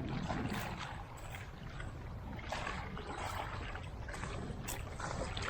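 Wind rumbling on the microphone over seawater washing and sloshing among rocks on the shore, with uneven surges of splashing noise.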